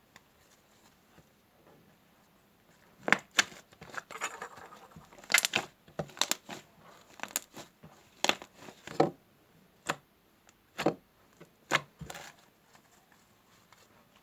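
Fluffy shaving-foam slime being squeezed and worked by hand, giving a run of irregular sharp pops and crackles. It starts about three seconds in and stops near the end.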